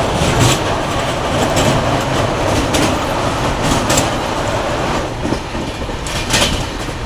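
Passenger express train running on the rails, heard from inside the coach: a steady rumble of wheels and carriage with sharp clacks every second or so as the wheels cross rail joints.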